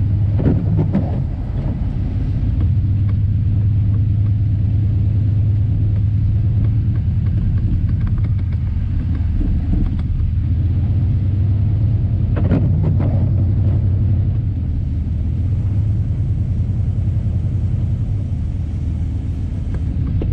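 Four-wheel-drive vehicle driving on a snow-covered road, a steady low rumble of engine and tyres heard from inside the cabin, with a couple of short louder noises about half a second in and again around twelve seconds.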